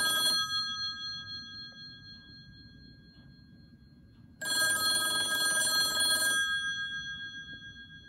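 Western Electric Model 500 rotary telephone's mechanical ringer ringing, its hammer striking two brass gongs, set to the softer setting. One ring ends about half a second in and the next starts about four seconds in and lasts about two seconds; after each ring the gongs hum on and fade.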